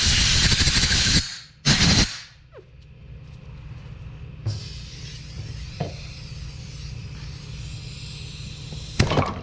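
Compressed-air blow gun blowing debris and brake cleaner out of a brake caliper bracket's pin holes: a loud hiss that cuts off about a second in, then a short second blast, and another brief blast near the end.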